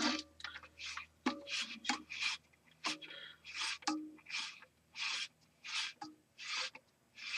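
A toilet float rod being screwed by hand into the plastic cap on the fill valve lever: a short rasping scrape with each twist, about ten of them at an even pace, roughly one every three-quarters of a second.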